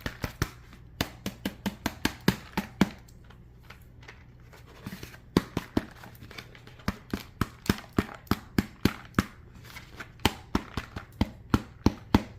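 Dried loofah gourd being shaken to empty it, its seeds rattling and dropping out in quick, sharp clicks. The clicks come in runs of about four or five a second, with a pause of about two seconds in the first half.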